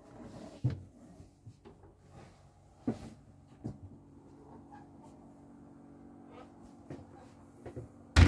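Scattered knocks and bumps of someone moving about inside a small boat cabin, over a faint steady low hum. The loudest thump comes near the end.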